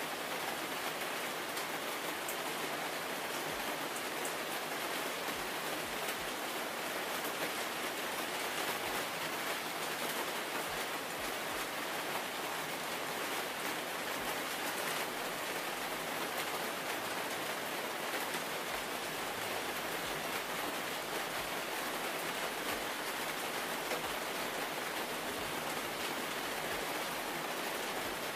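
Steady rain falling on surfaces: an even, unbroken hiss with no pauses or changes.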